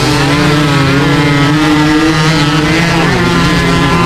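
Suzuki AX 100's two-stroke single-cylinder engine racing under hard throttle, a continuous buzzing note whose pitch wavers slightly up and down.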